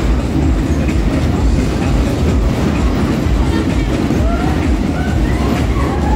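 Snow Speeder fairground ride's cars running at speed round their undulating track: a loud, steady rumble and clatter. A few short, high sliding squeals come in from about four seconds in.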